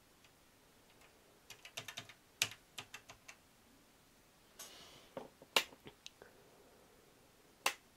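Light taps on the Grundy NewBrain computer's keys, several in quick succession, then a brief rustle and scattered sharper clicks, the loudest single click near the end.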